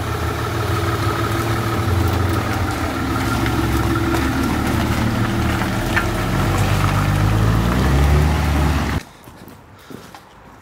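BMW 5 Series Touring (E39) engine running as the loaded car moves off slowly in low gear, its pitch drifting up and down with the throttle. The sound ends abruptly about nine seconds in.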